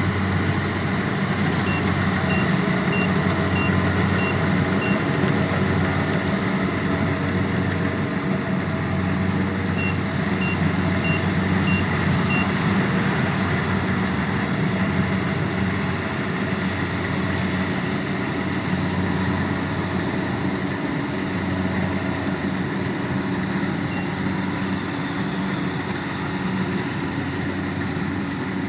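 Engine of a rice-harvesting machine running steadily, with two short runs of high, evenly spaced warning beeps, about two a second, in the first half.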